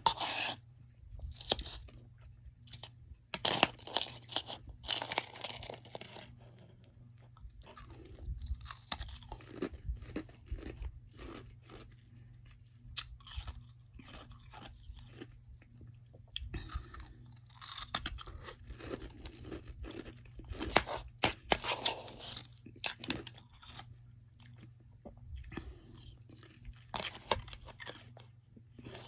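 Close-up chewing and crunching of soft freezer frost, in irregular clusters of bites with short pauses between. A faint steady low hum sits underneath.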